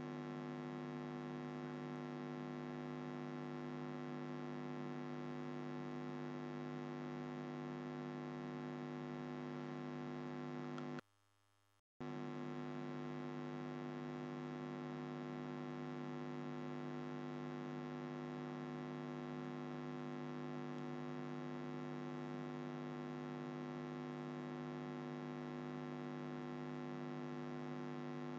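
Steady electrical mains hum picked up in the recording, with many evenly spaced tones. It cuts out for about a second a little over a third of the way in, then comes back unchanged.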